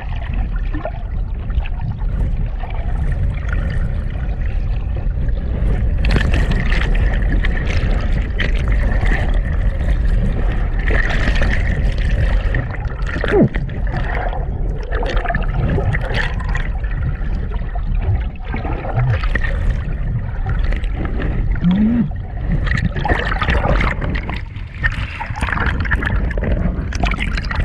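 Seawater sloshing and splashing, over a steady low rumble.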